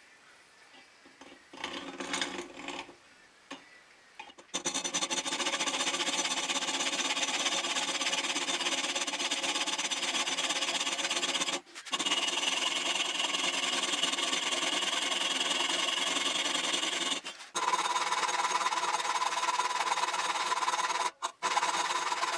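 A few faint knocks, then about four seconds in an electric motor starts and runs steadily at a fixed pitch, with three brief breaks where it cuts out.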